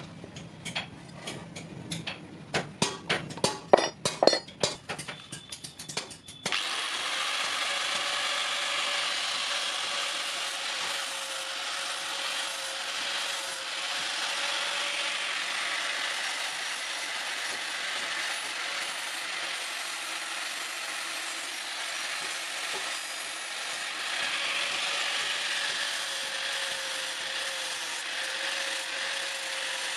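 A quick, uneven run of sharp metallic taps and clinks. About six seconds in it gives way abruptly to a steady abrasive noise of metal being worked on the knife blade, with a faint steady hum under it.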